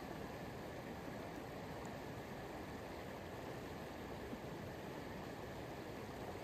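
Steady rushing of flowing water, an even hiss-and-rumble that does not change.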